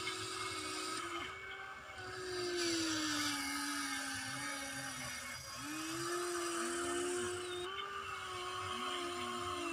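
Electric motors of radio-controlled excavators, a Huina 1593 among them, whining as the arms and buckets dig, the pitch gliding up and down with short dips and, in the second half, two whines at once.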